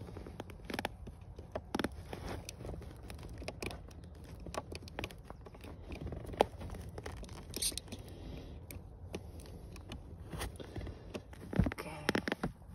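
Hands working in tight quarters under a car's floor carpet, plugging a diagnostic cable into a star connector: scattered small clicks, scrapes and rustles of carpet, trim and wiring. There is one sharper click about six and a half seconds in, and a cluster of knocks near the end.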